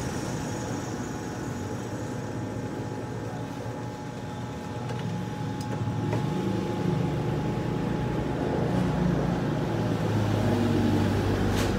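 Steady vehicle engine and road traffic noise in the background, growing louder in the second half. A sharp click near the end.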